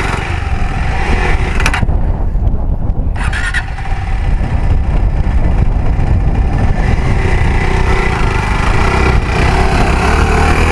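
KTM 390 Adventure single-cylinder engine running under throttle as the rear wheel spins in deep sand, trying to pull the bike out, with two short sharp knocks in the first few seconds.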